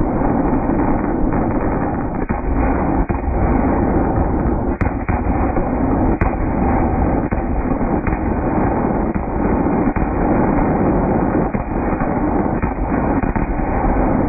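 Fireworks finale: many aerial shells bursting in rapid, overlapping succession, a continuous loud barrage of booms.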